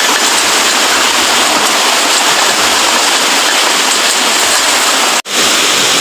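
Loud, steady rush of falling water from a waterfall close by. It cuts out for a split second about five seconds in.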